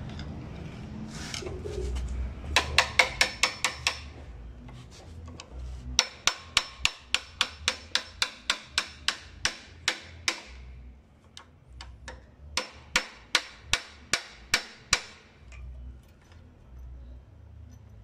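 Hammer striking a metal rod set on a motorcycle fork tube, driving the tube into the triple clamp: quick metallic taps, about four a second, in three runs, a short one about three seconds in, a long one through the middle and another shortly after.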